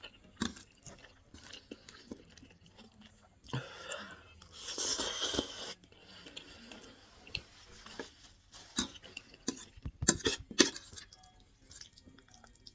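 Close-miked chewing and wet mouth noises of a person eating creamy chicken pasta with mushrooms: irregular small clicks and smacks, a longer noisy stretch around the middle, and a cluster of louder smacks near the end.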